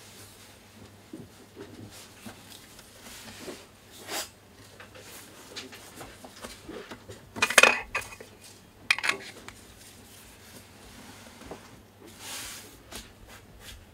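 Sony FE 24mm F1.4 GM lens handled in gloved hands, with its rings turned: scattered small clicks and light knocks. The loudest clatter comes about seven and a half seconds in, with a sharp click near nine seconds.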